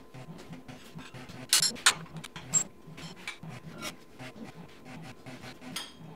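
Hand tools and steel parts clinking and knocking while a Jeep front axle is worked on, with three sharp clicks from about one and a half to two and a half seconds in, and lighter handling noises around them.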